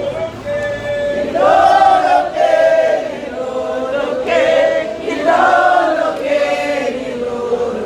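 A crowd of church members singing together in chorus, holding long notes that move up and down in pitch.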